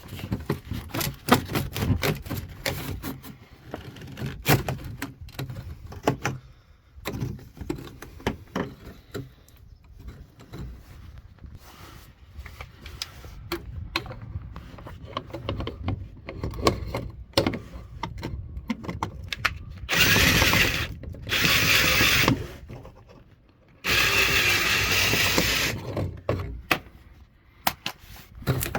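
Hand work with tools and parts: irregular clicks, knocks and rattles. About two-thirds of the way in come two loud, steady bursts of rushing, whirring noise, each a couple of seconds long.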